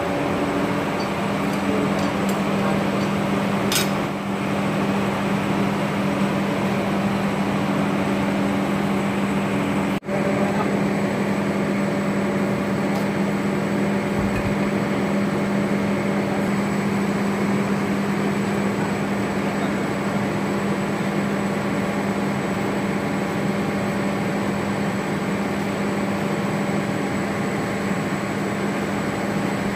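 Steady mechanical hum of running machinery, unchanging in pitch and level, with a short sharp click about four seconds in and a low thump about fourteen seconds in.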